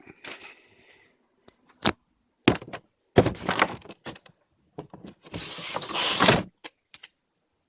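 Toy box and its contents being handled: a sharp click, several knocks, and a longer stretch of rustling and scraping about five seconds in.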